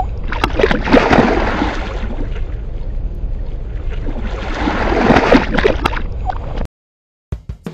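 A peacock bass splashing and thrashing in shallow water, with two heavier bouts of splashing, about a second in and near five seconds. The splashing cuts off suddenly, and drum music starts just before the end.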